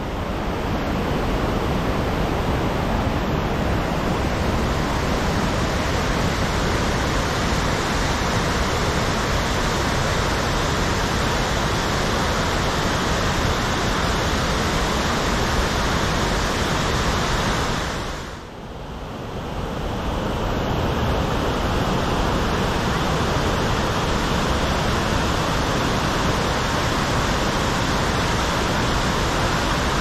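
Waterfall in heavy monsoon flow: a loud, steady rush of falling water. It drops away briefly about two-thirds of the way through, then comes back just as before.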